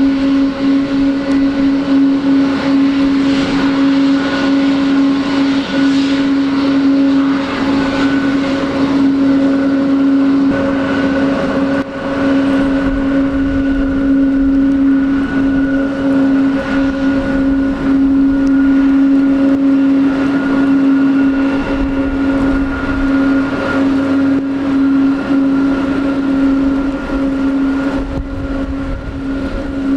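Boeing 777-200's twin turbofan engines at taxi power, a steady whine over a rushing haze, with a deeper rumble joining about twelve seconds in.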